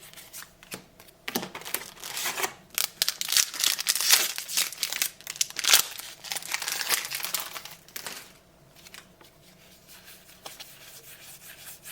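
A trading-card booster pack's wrapper being crinkled and torn open. The rustling starts about a second in, is loudest in the middle and dies down a few seconds before the end.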